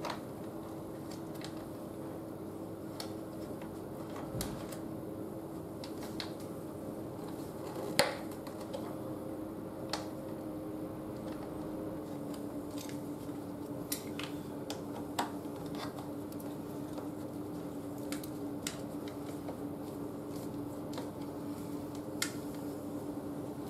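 Scattered light clicks and taps of hands fitting plastic brake-hose clips and a cover onto a motorcycle's front fork leg, the sharpest about eight seconds in, over a steady hum.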